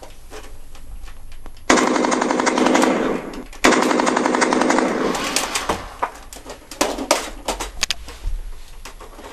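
Gunfire sound effect for a Nerf Neutron blaster: two loud bursts of rapid machine-gun rattle, about two seconds and a second and a half long, followed by scattered sharp clicks.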